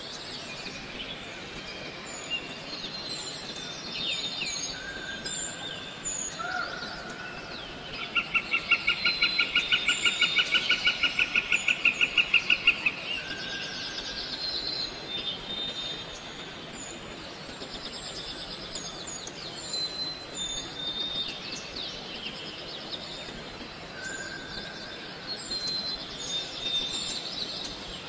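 Birds chirping and whistling in short scattered notes over steady outdoor background noise. Near the middle comes a loud, fast, evenly pulsed trill that lasts about five seconds.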